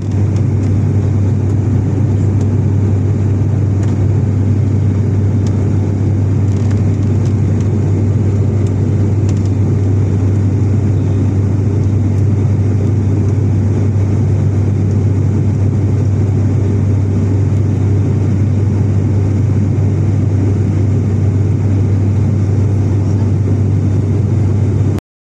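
Steady low drone of an ATR 72's turboprop engines and propellers, heard inside the passenger cabin in cruise flight, with a strong deep tone under a rushing noise.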